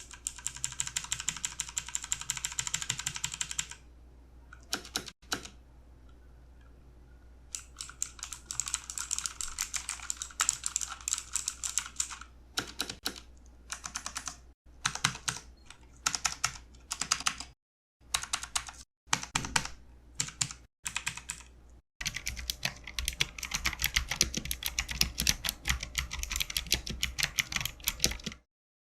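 Typing sound test on a MOTOSPEED CK104 full-size mechanical keyboard with clicky blue Cherry MX clone switches: fast runs of sharp, crisp key clicks and clacks, broken by short pauses. The longest dense runs come at the start, in the middle and near the end.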